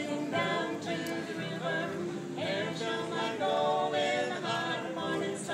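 Music with singing: held sung notes over a backing.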